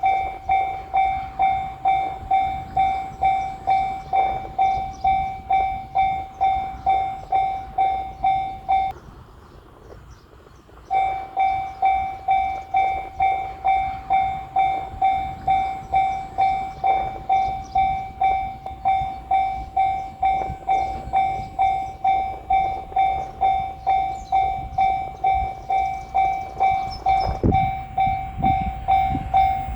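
Japanese railway level crossing warning bell ringing its rapid "kan-kan" at a little over two strikes a second. It stops for about two seconds some nine seconds in, then starts ringing again. A brief low rumble comes in near the end.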